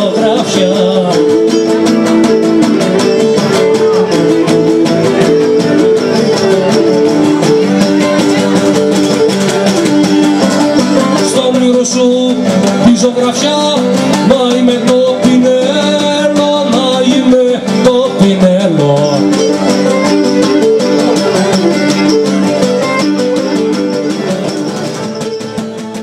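Traditional Cretan folk music played live: a bowed Cretan lyra with two strummed Cretan lutes (laouta), an instrumental passage that fades out near the end.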